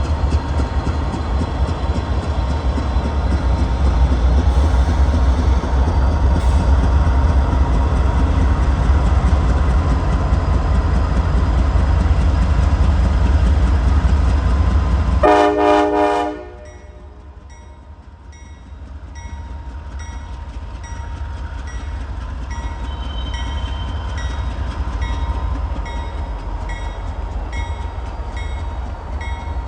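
CSX diesel locomotives running loud and heavy. About halfway through there is a short horn blast, then the rumble drops away suddenly and a bell rings steadily, about three strikes every two seconds, over a quieter engine sound.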